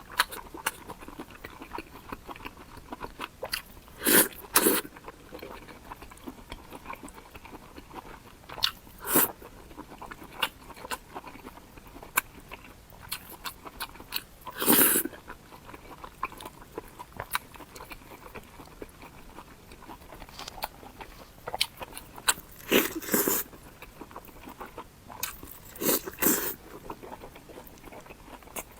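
Close-miked eating of a crispy deep-fried egg: several loud crunching bites a few seconds apart, with steady small chewing clicks between them.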